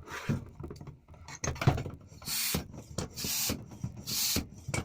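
Restored vintage Dunlop foot pump being worked, pushing out a puff of air through its new hose about once a second, four rushes in a row starting about two seconds in, after some clicks and knocks from the pump being handled. The steady puffs show the pump now delivers air.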